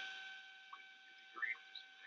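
Quiet room tone with a faint steady high-pitched hum and a few faint, brief sounds.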